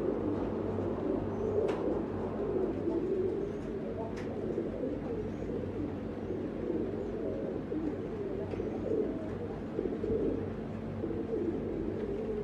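Several domestic pigeons cooing continuously, their coos overlapping, with a couple of sharp clicks early on.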